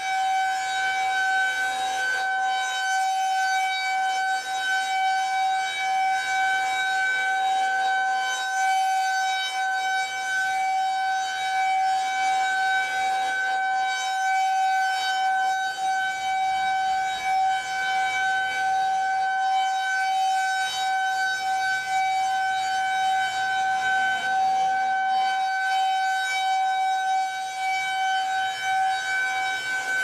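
Federal Signal 2001-SRN electromechanical outdoor warning siren holding a steady single-tone alert signal during a routine test. Its horn is rotating, so the loud tone swells and dips slightly as it turns.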